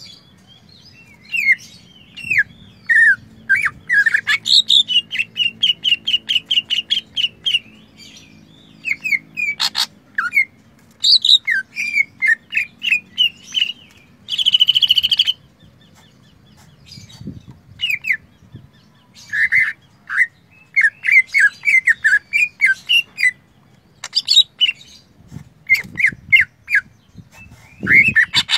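Caged male green leafbird (cucak ijo) singing a loud, varied song of quick whistled and chirped notes in bouts, with a rapid run of repeated notes early on and a fast buzzing trill about halfway. The song is said to be loaded with imitated phrases of other birds, such as the canary.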